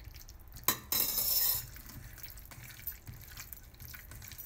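A hand squishing and mixing boiled vegetables in thick curd inside a stainless steel bowl, making wet squelching and small clicks against the metal. Just under a second in there is a sharp knock, followed by a short, loud rush of noise.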